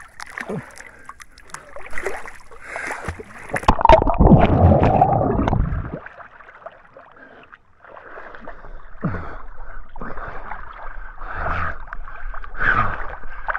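Swimming-pool water splashing and sloshing as people swim and grapple, with a loud burst of churning water about four seconds in that lasts about two seconds.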